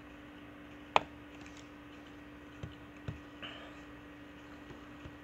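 A few scattered short clicks and taps, one sharp and loud about a second in, over a faint steady hum.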